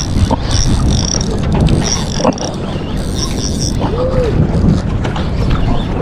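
Wind buffeting the microphone, a loud steady low rumble throughout, with faint high chirps in the first few seconds and a short rising-and-falling tone about four seconds in.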